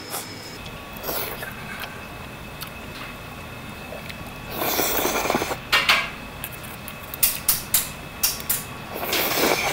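Metal chopsticks clinking against a stainless-steel bowl and pot, with two long slurps of noodles, one about halfway through and one near the end.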